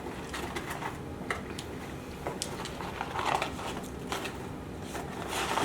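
Close-miked eating: chewing and wet mouth sounds, with scattered small clicks and a short louder patch of crunching or rustling about three seconds in, over a steady low room hum.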